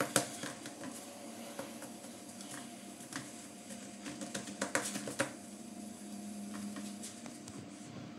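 Hands pressing, patting and pushing pizza dough out across a round metal pizza pan on a granite countertop: soft rubbing and pats with a few light knocks of the pan against the stone, over a faint steady hum.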